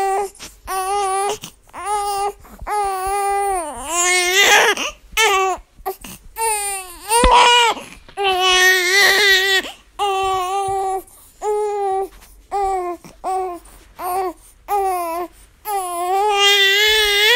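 Baby crying in a long run of short wails, about one a second, separated by brief catches of breath; most wails hold a steady pitch, a few bend up or dip down.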